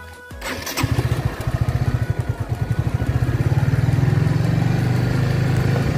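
Motorcycle engine running while being ridden, picked up close from the bike: a steady, quickly pulsing low note that grows a little louder about three seconds in. A brief sharp noise comes just under a second in, before the engine sound sets in.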